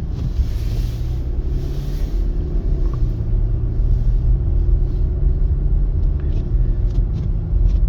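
Steady low rumble of a 2025 Mercedes-Benz GLC 300 driving on snowy streets: road and tyre noise with a faint engine hum underneath.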